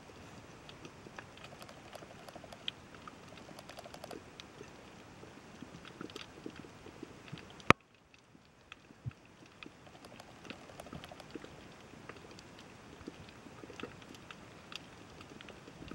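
Underwater ambience: a steady crackle of small, scattered clicks and ticks. A single sharp click comes about eight seconds in, after which the sound briefly drops away and fades back.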